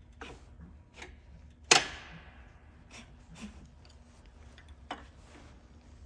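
Lycoming aircraft engine being turned slowly by hand at the propeller flange for a crankshaft run-out check: scattered metallic clicks from the engine, with one loud, ringing clack about two seconds in.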